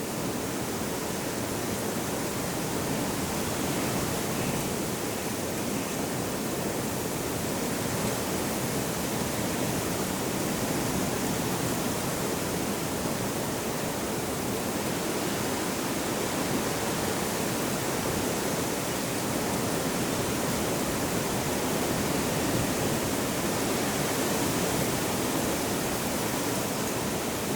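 A steady, even rushing noise that does not change, with no tones, rhythm or sudden sounds.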